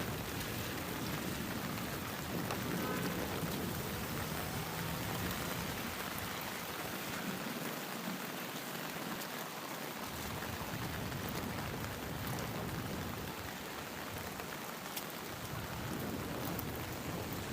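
Steady rainfall, an even hiss with occasional faint ticks.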